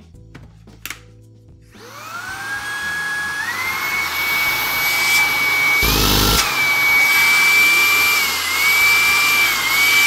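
Shark IZ251 cordless stick vacuum switched on after a click, its motor spinning up with a rising whine and then running steady at high speed. The whine dips briefly in pitch a few times, and there is a short low rumble about six seconds in.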